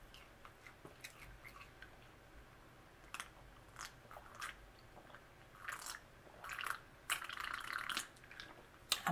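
Faint, close-miked mouth sounds of eating and drinking: chewing and finger-licking, then sips from a glass of iced drink, with scattered small clicks.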